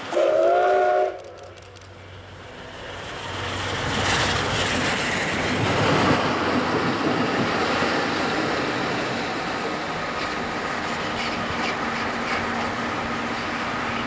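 Steam locomotive C58 239 blows its whistle once for about a second. The train then passes close by: the steam locomotive, its coach and an EF65 electric locomotive, with the noise of wheels on the rails building up and staying loud as it goes past.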